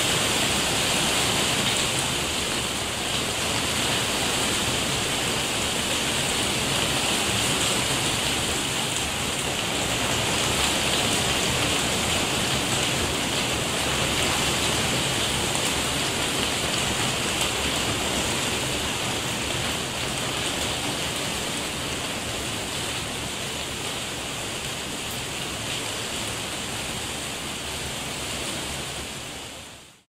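Hail falling on a roof: a dense, steady rush of many small impacts that fades out at the very end.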